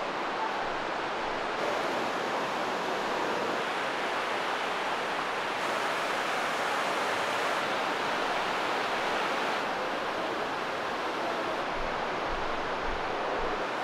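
Steady rushing of a fast mountain river through a gorge: an even, unbroken sound of running water.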